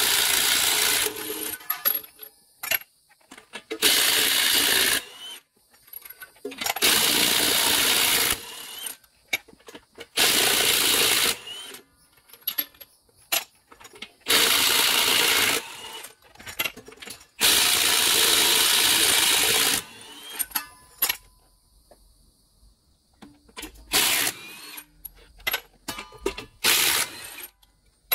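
Cordless impact wrench hammering lug nuts loose on a motorhome's rear wheel: about six loud runs of one to two seconds each, with clicks and clinks of tool and nuts between them and two shorter runs near the end.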